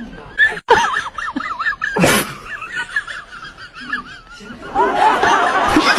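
High-pitched laughter in short, wavering giggles, with a brief noisy burst about two seconds in.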